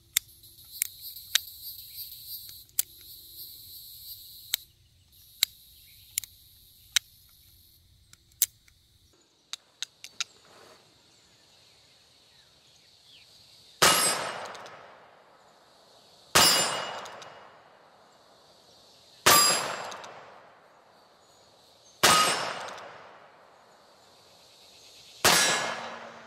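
Five shots from a .22 Magnum single-action revolver, about every two and a half to three seconds in the second half. Each is a sharp crack followed by a long metallic ringing clang, like a steel target being hit. Before the shots come a scatter of sharp clicks.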